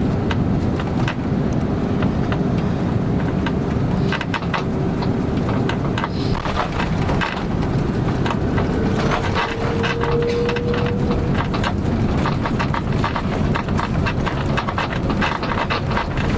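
Cabin noise inside an Airbus A330-200 airliner: a steady low rumble of engines and airflow, with frequent rattles and clicks from the cabin fittings. A faint tone in the rumble rises slightly about nine seconds in.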